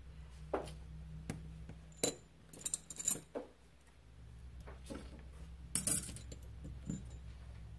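Small metal tools and phone parts clicking and clinking on a workbench during phone disassembly, with sharp taps about two, three and six seconds in, some briefly ringing, over a low steady hum.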